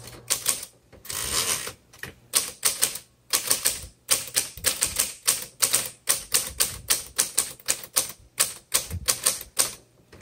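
Smith Corona Coronet Automatic 12 electric typewriter typing: a quick, uneven run of sharp key strikes, several a second, over a low steady hum, with a longer rushing mechanical sound about a second in.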